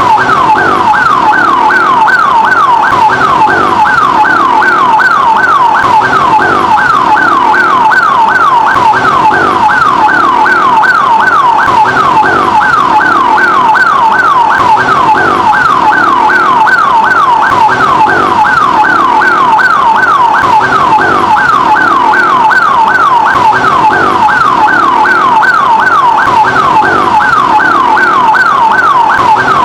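Electronic ambulance siren wailing in a fast yelp, each cycle a quick jump up and a falling sweep, repeating about two and a half times a second at a steady, even loudness.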